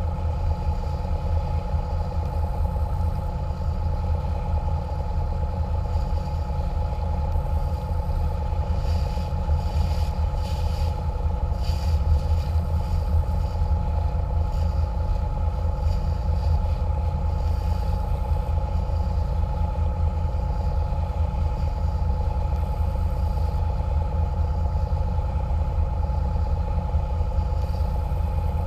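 Catamaran water bus under way, its engines running with a steady low drone and a steady whine over it. Brief bursts of hiss about ten seconds in.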